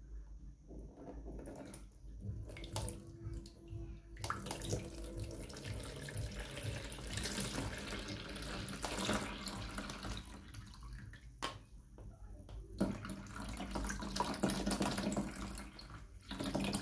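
Milk poured from an aluminium pot through a plastic sieve, splashing steadily into a plastic tub below. A few light handling knocks come first. The pour starts about four seconds in, slackens briefly in the middle and then picks up again.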